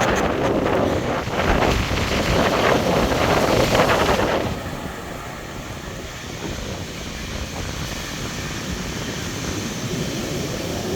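Heavy surf breaking, mixed with wind buffeting the microphone: a loud rushing crash for the first four seconds or so, then a quieter steady rush of water and wind.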